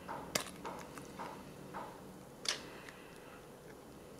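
Ring-pull tab on a small metal pâté tin being worked up with a finger: a few light metallic clicks and ticks, the loudest about two and a half seconds in.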